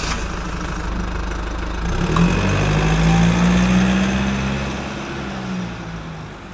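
Engine sound effect: a motor running, revving up about two seconds in and holding, then fading away.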